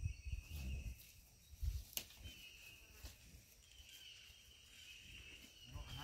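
Faint, steady drone of insects, with a few low thumps in the first two seconds and a single sharp click about two seconds in.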